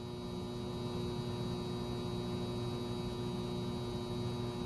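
Steady electrical mains hum with a constant buzzing tone and no other events.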